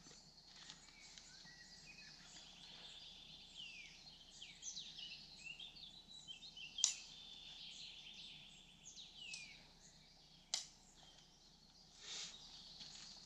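Faint morning birdsong, many small birds chirping and trilling in woodland, with two sharp clicks, one about halfway through and one a few seconds later.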